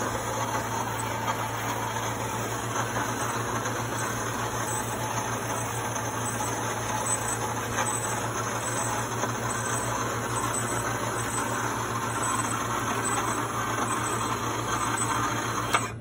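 Electric winch motor of a DIY ladder hoist running steadily under its hand-held manual control, moving the carriage along the ladder. It stops with a couple of clicks near the end.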